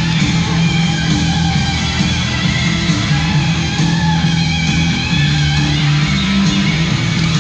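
Rock music with guitar and a steady bass line.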